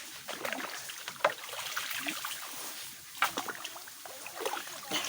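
Digging in waterlogged mud: irregular splashing and squelching with sharp knocks, the loudest about a second in and again past three seconds.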